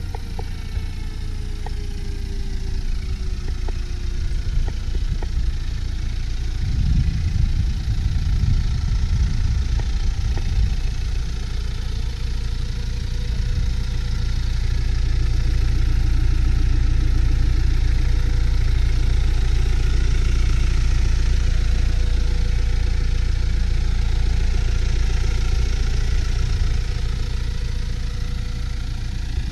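Mini Cooper Countryman D's 2.0-litre four-cylinder diesel idling steadily, a low rumble that swells a little between about 7 and 10 seconds in.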